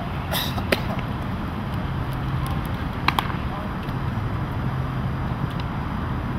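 A pitched baseball pops sharply into a catcher's mitt just under a second in, with two quick clicks about three seconds in, over a steady low hum of traffic.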